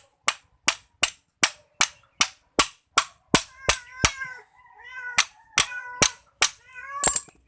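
Steady, rapid hammer blows on metal, about two and a half a second, pausing briefly after about four seconds and ending with one louder strike. A cat meows repeatedly through the second half.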